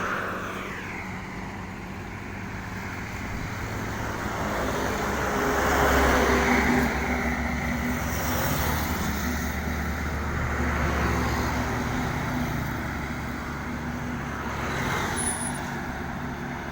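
Road traffic: vehicle engines running steadily, with one passing close and louder about six seconds in.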